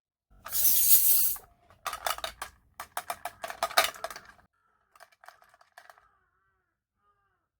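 Small miniature toy kitchen pieces being handled: a brief rustle, then a quick run of small clicks and clinks, then a few fainter clinks that ring briefly.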